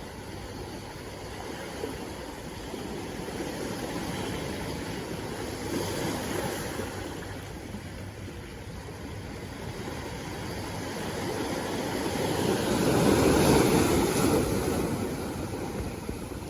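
Sea waves washing onto the shore: a steady surf rush that swells with a smaller wave about midway and a bigger, louder wave breaking near the end.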